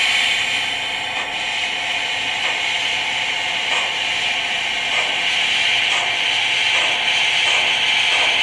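Steam sound from the Loksound 5 decoder in an HO-scale SAR GMAM Garratt model, played through its small onboard speakers: a steady hiss with soft, slow chuffs about once a second as the locomotive moves off at low speed.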